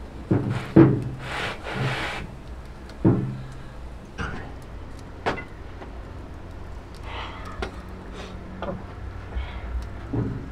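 Scraping and knocking of flatbread and a metal spatula against a wide iron pan: rubbing scrapes in the first two seconds, a sharp knock with a short low ring about three seconds in, then a few scattered clicks.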